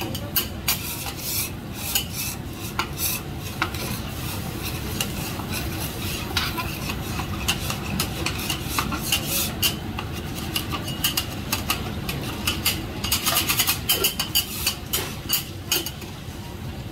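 Metal spatulas clacking and scraping on a teppanyaki griddle in quick, irregular strokes, coming thickest about three-quarters of the way through, over steady low background noise.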